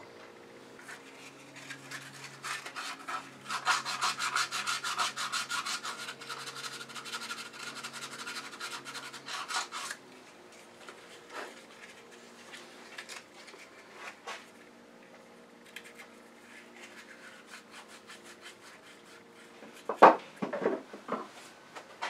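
Quick rubbing and scraping strokes on a small turned wooden piece worked by hand, dense for several seconds and then giving way to light handling clicks. A sharp knock near the end is the loudest sound.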